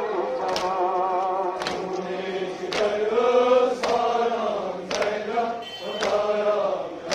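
Crowd of male mourners chanting a nouha in unison, with chest-beating (matam) strikes keeping time about once a second.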